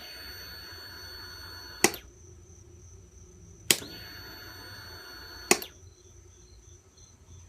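Kawasaki ZX-6R starter relay clicking as the start button is pressed and released, twice, with a steady high whine for about two seconds while the button is held; the engine does not turn over. The owner suspects a weak battery, a bad starter solenoid or the starter motor itself.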